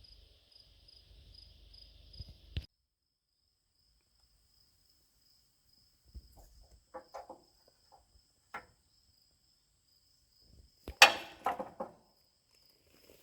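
Crickets chirping, cut off abruptly between two and three seconds in, leaving a faint high insect tone. Near the middle come a few light clicks, then a loud rattling clatter of several quick strokes about eleven seconds in.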